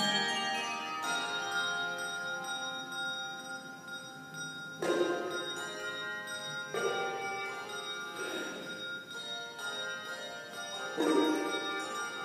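Handbell choir ringing chords that sustain and overlap, with a new chord struck about five, seven, eight and eleven seconds in.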